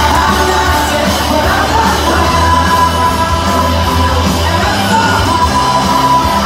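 Loud music with singing and a steady, heavy bass line.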